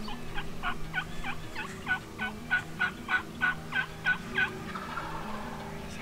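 A series of about a dozen turkey yelps, evenly paced at about three a second and growing louder through the run, ending a little after four seconds in.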